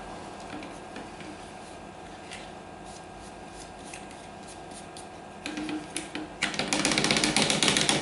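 Faint handling clicks, then about six and a half seconds in a loud run of rapid plastic rattling and clicking. This is the dust-clogged cyclone filter assembly of a VAX U85 bagless vacuum's bin being shaken to knock the fluff out.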